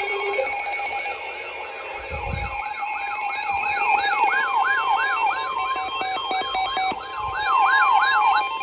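Several weather alert radios going off at once for a severe thunderstorm warning: a siren-like alarm sweeping up and down about three times a second, rapid beeping, and the steady NOAA Weather Radio warning tone. The sweeping stops just before the end, leaving the steady tone.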